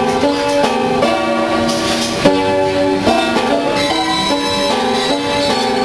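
Seeburg coin-operated piano playing from a perforated paper music roll, chords and notes changing several times a second, with a sharp click a little past two seconds in. The instrument is in very poor playing condition, barely still working.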